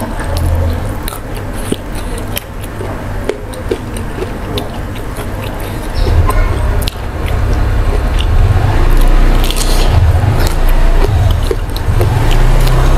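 Close-miked eating of raw vegetables: crisp, crunchy clicks of biting and chewing raw round green eggplant and greens, over a deep low rumble that grows louder about six seconds in.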